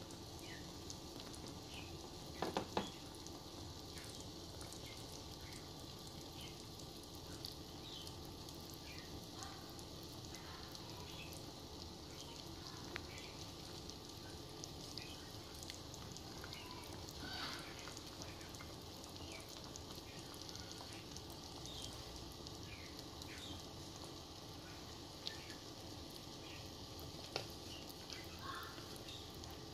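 Pot of pork in black sweet rice vinegar sauce simmering: a steady low hiss with scattered small bubbling pops and crackles. A few sharp clicks come about two and a half seconds in.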